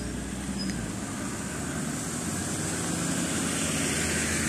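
Steady rumble of a passing motor vehicle, growing slightly louder toward the end.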